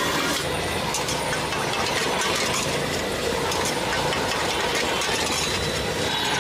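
Metal spatula clanking and scraping in a steel wok as noodles are stir-fried, over a steady din of street traffic.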